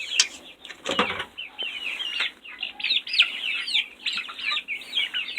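A flock of young chickens peeping continuously, many short high downward-sliding calls overlapping. A short thump about a second in.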